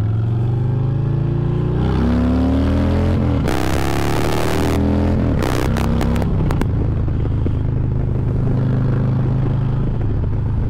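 Harley-Davidson bagger's V-twin engine under way, its pitch rising as it accelerates out of a turn, then running steadily at cruising speed. A short rush of noise and a few clicks come about halfway through.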